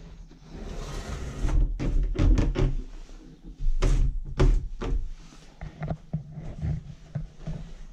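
An old wooden door being pushed open: a scraping stretch, then a series of sharp knocks and thuds, with a steady low rumble underneath.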